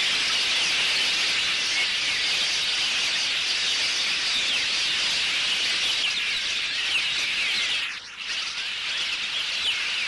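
Dense chorus of a large flock of birds, many chirping and calling at once in a continuous high-pitched din, with a brief drop about eight seconds in.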